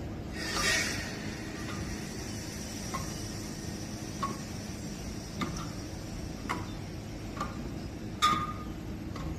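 Light metallic clanks with a short ring, roughly one a second, as hands grab and pull on a metal bar window grille during a climb. The loudest clank comes near the end, and a brief scraping rush comes near the start.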